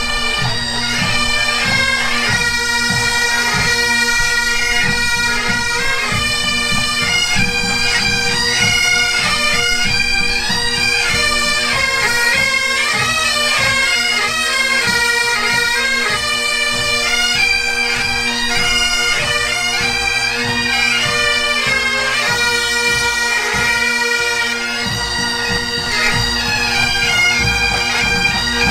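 Great Highland bagpipes playing a tune over their steady drone, with drumming underneath: pipe band music.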